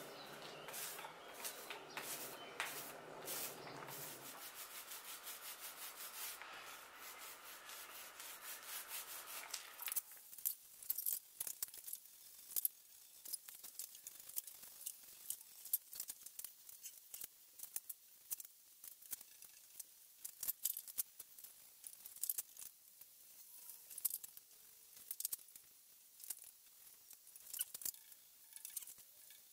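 Wet epoxy being worked into glass cloth on a wooden keel timber: a hand tool and then a small roller rubbing over the sticky surface. It gives a soft rubbing sound with many small irregular clicks and crackles.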